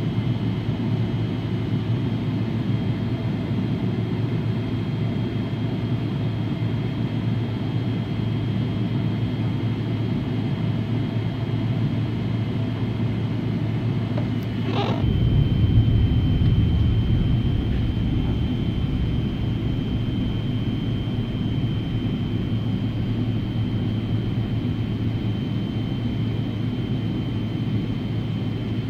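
Boeing 777-300ER's GE90 engines heard from inside the cabin over the wing: a steady low rumble with a thin high whine. About halfway there is a short knock, then the rumble deepens and briefly swells as the aircraft starts to roll.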